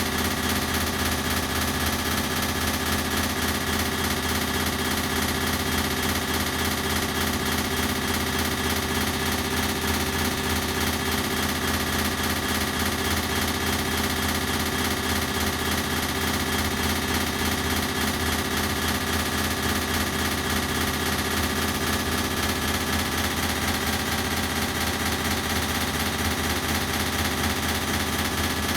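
Ceiling fan running steadily with a fast, even pulsing hum, processed with an added echo effect.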